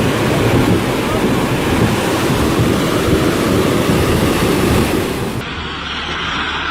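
Loud rushing floodwater with wind buffeting the microphone. About five seconds in it cuts abruptly to a duller, steadier rumble.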